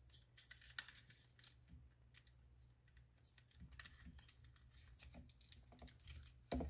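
Near silence with faint, scattered small clicks and plastic rattles of hands handling wiring connectors behind a steering wheel hub, over a low steady hum.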